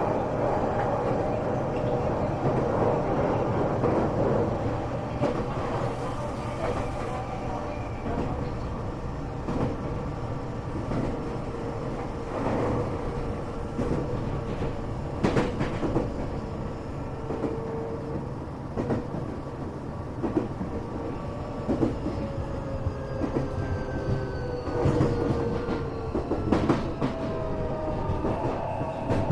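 Tokyo Metro 8000 series electric train running, heard from inside a passenger car: a steady rumble with sharp wheel clicks over rail joints. Thin tones glide down in pitch over the last several seconds.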